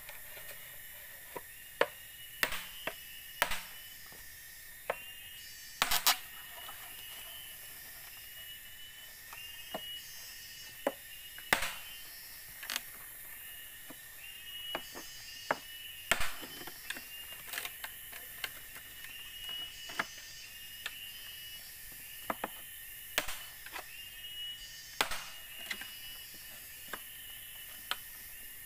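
Machete blade striking and splitting a green bamboo pole, making irregular sharp knocks and cracks every second or so. A steady high chirping runs in the background.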